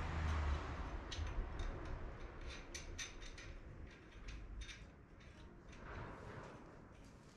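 Scattered light metallic clicks and taps as metal guide rods are set upright into the stud holes of a motorcycle engine's crankcase, used as temporary guides for fitting the cylinder.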